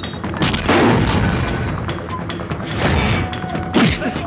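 Film fight-scene sound effects: several heavy punch and stick-hit impacts, a few seconds apart, over a loud action background score.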